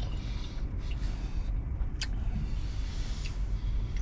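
Steady low vehicle engine rumble, with a single sharp click about two seconds in.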